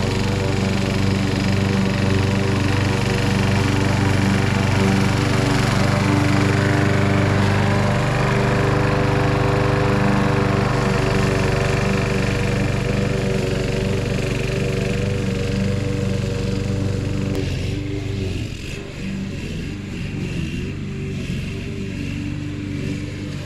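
Walk-behind gasoline lawn mower engine running steadily while cutting grass. It is loud at first, then grows somewhat quieter about three quarters of the way through as the mower moves away.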